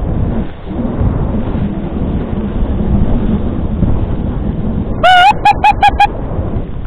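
Dog-sled runners hissing and rattling over snow at speed, with wind on the microphone. About five seconds in comes a loud rising high yelp, then four quick high yips.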